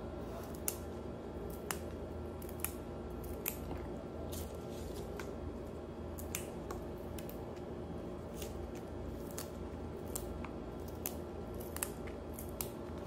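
Crisp clicks, roughly one a second and unevenly spaced, of a knife cutting through water spinach (kangkung) stems held in the hand. A steady low hum runs underneath.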